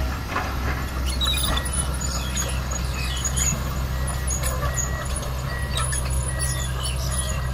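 Komatsu PC200 hydraulic excavator's diesel engine running steadily under load as the bucket digs into a termite mound, with scattered scrapes and knocks of earth and roots.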